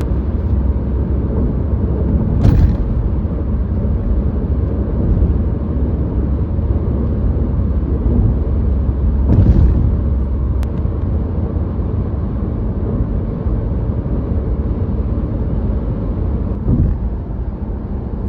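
Steady road noise of a vehicle driving on the highway, a continuous low rumble of tyres and engine, with two brief louder swells about two and a half and nine and a half seconds in.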